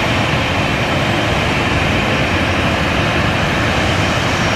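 Boeing 737 airliner's jet engines running steadily as it taxis, a loud, even rushing noise.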